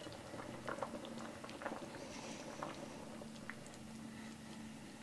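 Kitchen tongs clicking against a soup pot as bone-in chicken thighs are lifted out of simmering soup, with small splashes and drips, most of them in the first two seconds. A low steady hum runs underneath.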